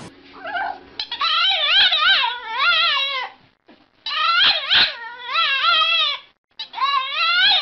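A dog giving long, wavering whine-howls in three bouts, each about two seconds, its pitch bending up and down throughout.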